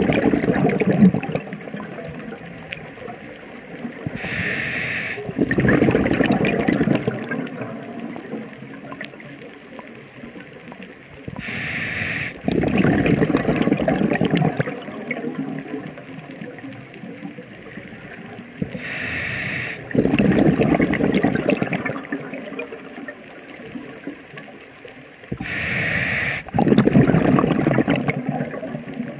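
Scuba diver breathing through a regulator underwater: a short hiss on each inhale, then a louder bubbling rush as the exhaled air escapes. The cycle repeats about every seven seconds, four to five times.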